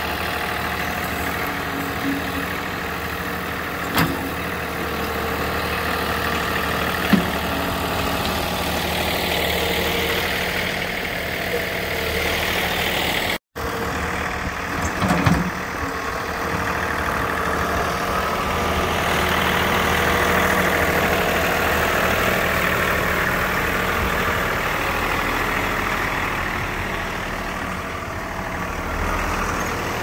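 John Deere 3046R compact tractor's three-cylinder diesel engine running steadily while the tractor works. A few short sharp knocks are heard, and the sound cuts out for an instant about a third of the way in.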